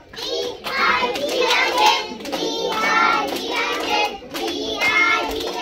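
A group of young children singing a song together, with hand claps along the way.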